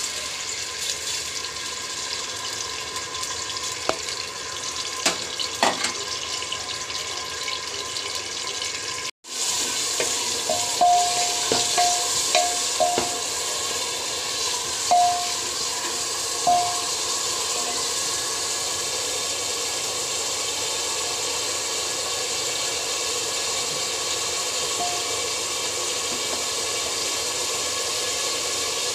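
Sliced onions sizzling in hot oil in a pressure cooker: a steady frying hiss. A few knocks come about four to six seconds in, the sound cuts out briefly near nine seconds, and short clinks follow between about ten and seventeen seconds in.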